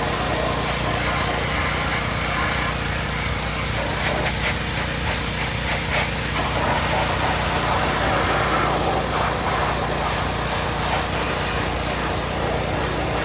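AGT hot water pressure washer running steadily, its small engine droning under the hiss of the high-pressure hot water spray on greasy equipment.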